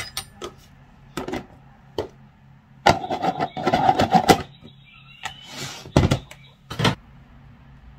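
Plastic rice pot and its lid being handled: scattered clicks and knocks, a busy scraping rattle about three seconds in as the lid is pressed on, and a sharp knock about six seconds in.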